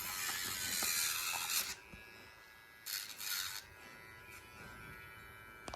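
YABIFE rechargeable electric pet nail grinder running with a steady motor whine. Its spinning grinding wheel rasps against a dog's nail twice: a long grind of about two seconds at the start, then a shorter one about three seconds in.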